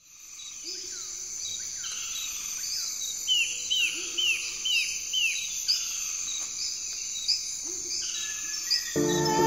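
Birds chirping over a steady high-pitched insect drone. Short falling chirps repeat throughout, with a quick run of five in a row around the middle, and a lower call sounds now and then.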